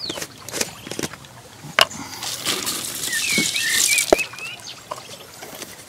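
Chilli hemp seeds poured from a jar into a bait bucket: a hissing rattle of small seeds lasting about two seconds in the middle, with several short knocks of jar and bucket around it. A bird chirps in the background while the seeds pour.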